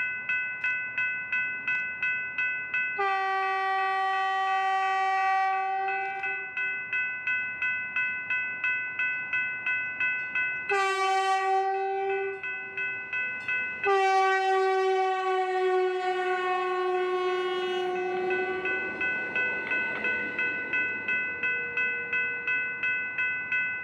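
Railroad crossing bell ringing about twice a second while a Stadler FLIRT diesel multiple unit sounds its horn as it approaches: a long blast, a shorter one, then another long blast. The last blast drops slightly in pitch and the train's rumble follows as it passes.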